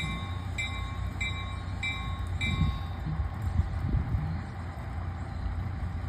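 A locomotive bell ringing in an even rhythm, about a strike every 0.6 s, and stopping about three seconds in. Under it runs the steady low rumble of an idling diesel locomotive.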